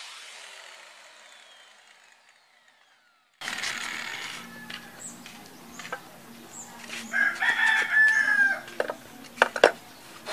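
Corded angle grinder spinning down after a cut, its whine falling in pitch and fading out over the first few seconds. After a sudden jump in the sound, a rooster crows about two-thirds of the way through, with a few sharp metal clicks and taps from hand tools around it.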